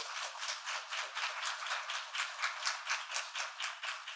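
Small audience applauding: a dense patter of many hands clapping together that begins to thin out near the end.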